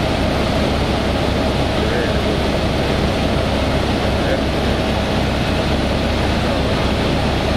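Helicopter in flight: a steady, loud drone of turbine and rotor noise from inside the cabin, with a constant low hum and no change in pitch.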